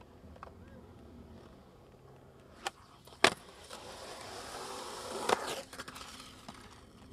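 Skateboard on rough concrete: a sharp clack of the board about a third of the way in, then urethane wheels rolling down the slope with a rising rumble, with another knock near the end of the roll before it fades.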